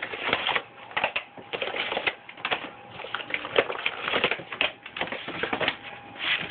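Trading card box packaging being handled and torn open by hand: irregular crinkling, rustling and ripping.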